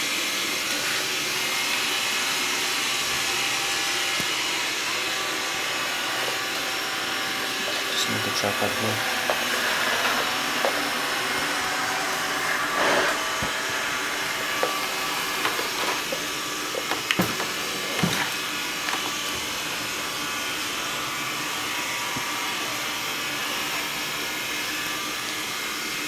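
Xiaomi Mi Robot Vacuum cleaning a laminate floor: its brushless suction-fan motor and brushes run with a steady whir. A few light clicks and knocks come in the middle stretch.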